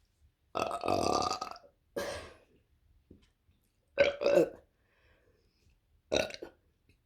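A woman burping: a series of about four deliberate belches with pauses between them. The first is long, about half a second in; the loudest is a quick double burp in the middle.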